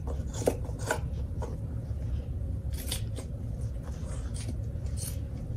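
Orange-handled scissors snipping through striped upholstery fabric, trimming the excess from under a seat: a handful of separate snips at uneven intervals, over a steady low hum.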